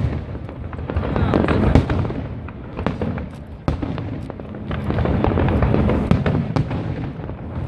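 Fireworks display: sharp bangs of shells bursting, the loudest about two seconds in, over dense crackling from many bursts in quick succession.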